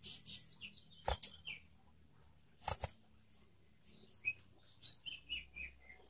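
Young common iora giving short chirps in stepwise falling runs, one early and a longer one from about four seconds in. Two sharp knocks sound at about one second and near three seconds in.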